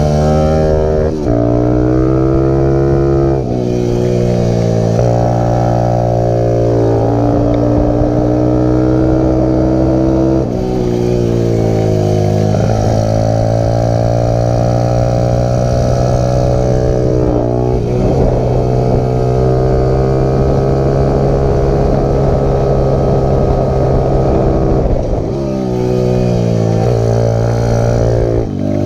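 Stomp pit bike's single-cylinder engine running hard through the gears. The engine note climbs on the straights and drops sharply several times as the rider changes gear and slows for corners.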